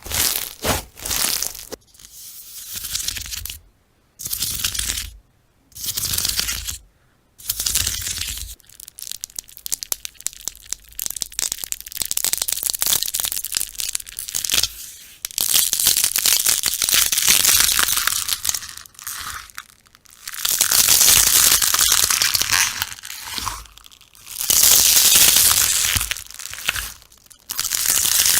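Slime being squished and stretched: sticky crackling and popping in bursts of a second or two, with a run of quick clicks in the middle and longer, denser crackling bursts near the end.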